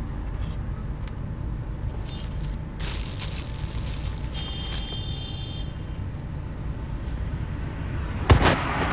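Hands working the felt insulation and plastic defroster vent ducts on a stripped car dashboard: rustling and scraping over a steady low workshop hum, a brief high squeak about halfway, and a sharp knock near the end as the plastic ducting is moved.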